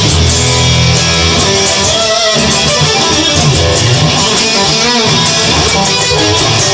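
Instrumental rock music: strummed electric guitar over bass and drums, no vocals.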